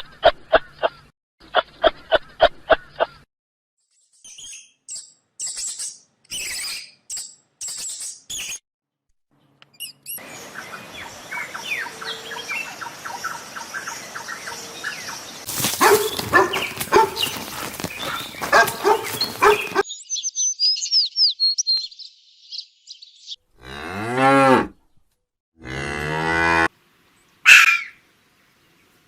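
A cow mooing twice in long, low calls about three-quarters of the way through, among a sequence of other short animal-sound clips: rapid repeated calls at the start, high chirping, and a noisy farmyard stretch in the middle.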